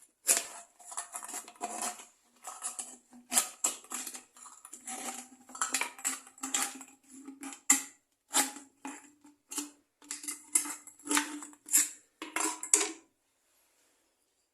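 Thin sheet metal of an emptied spray paint can being cut and pried open with a tool: irregular clanking and scraping strokes with a metallic ring, stopping about a second before the end.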